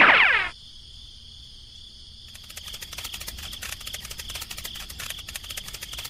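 Cricket-like chirping ambience: a steady high trill that gains a fast run of clicks and grows louder about two seconds in. At the very start a cartoon sound effect slides down in pitch and fades.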